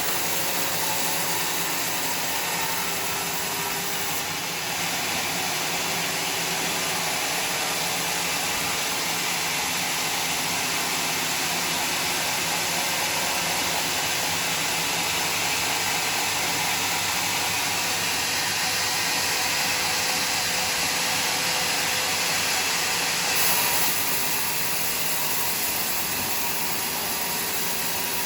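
Sawmill running and sawing through a bayur log, a steady dense noise. About 23 seconds in it briefly gets louder, then the upper part of the sound changes.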